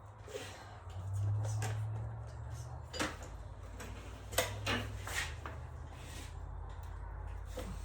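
Scattered sharp clicks and light knocks of hands working in the engine bay, pushing spark plug wire boots onto the plugs of a 4.3 V6, over a low steady hum.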